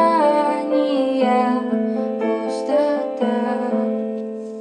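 Closing bars of a pop ballad: sustained keyboard chords, fading out near the end.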